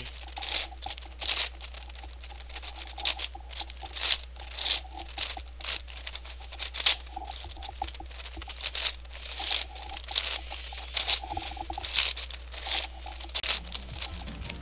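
Yuxin 11x11x11 puzzle cube being turned by hand: irregular plastic clicks and scraping of layers sliding, a few times a second, over a steady low hum.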